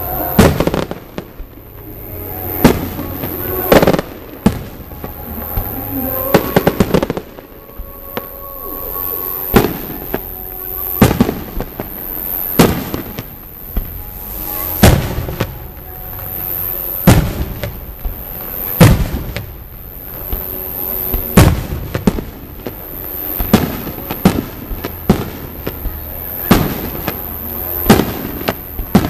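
Aerial firework shells bursting one after another in a display, a sharp bang every one to two seconds through the whole stretch.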